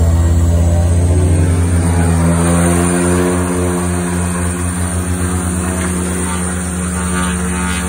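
Twin turboprop engines and propellers of a DHC-6 Twin Otter seaplane, running loud as heard from inside the cabin. About two seconds in, the sound eases slightly and a steady pulsing beat between the two propellers sets in.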